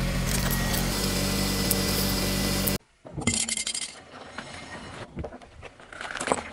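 A slow-rolling car running steadily as its tyre presses down on small plastic toys on concrete. After a sudden cut, the tyre crackles over grit on asphalt, with scattered small clicks.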